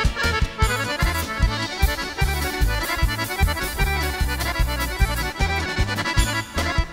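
Accordion playing a fast Serbian kolo dance tune, with quick runs of notes over a steady bass beat.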